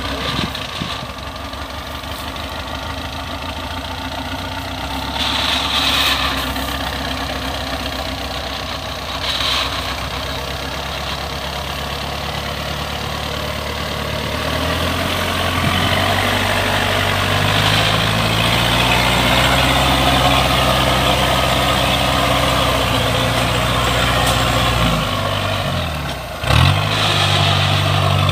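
Engine of a small tracked rice-hauling carrier loaded with sacks of paddy, running steadily and then working harder about halfway through, its pitch and loudness rising. Near the end it drops briefly and then picks up again.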